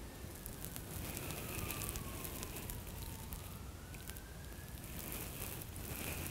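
A faint wailing siren, its single tone rising and falling slowly over a few seconds, over soft crackling rustles.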